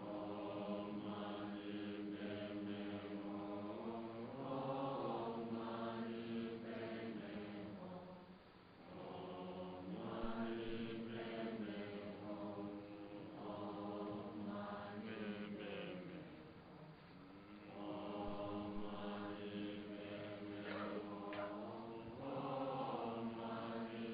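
Buddhist chanting by low male voices in unison: long held phrases that step up and down in pitch, with a short pause for breath about every eight seconds.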